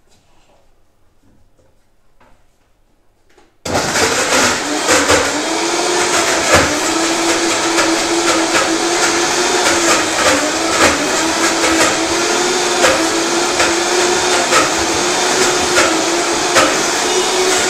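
High-performance blender switched on about four seconds in and then running steadily at high speed with scattered knocks, blending dates, cocoa and milk into a chocolate spread.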